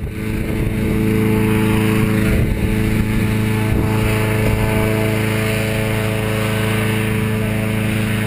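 Petrol-engined balloon inflator fan running steadily at a constant speed, blowing cold air into a hot air balloon envelope during cold inflation, heard from inside the fabric envelope.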